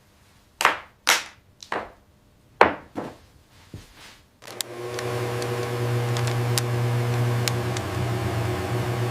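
About five sharp knocks in quick succession over the first few seconds. Then a steady low hum with several held tones starts suddenly, with a few faint clicks over it.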